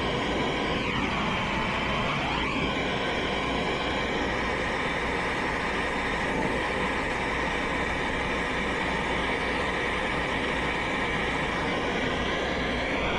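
Air-acetylene turbo torch burning with a steady hiss while brazing copper refrigerant line. A whistling tone dips and rises in pitch near the start and rises again near the end.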